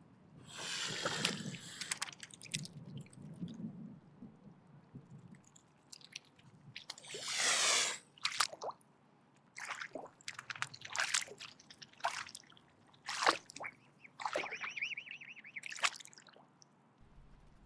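Mute swan hissing in a series of harsh bursts: a long hiss near the start, another about seven seconds in, then a quick run of shorter hisses. The hiss is the swan's defensive threat.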